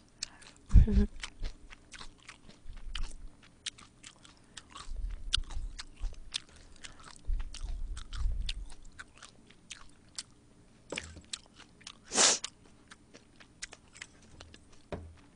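Close-miked chewing of spicy stir-fried pork and kimchi, with many wet mouth clicks and smacks and a few low thuds of chewing. There is a brief loud rush of noise about twelve seconds in.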